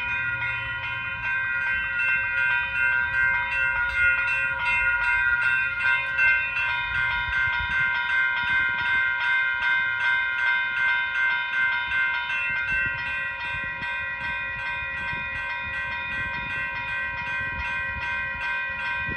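Railroad crossing warning bells ringing continuously in rapid, evenly repeated strikes, signalling an approaching train.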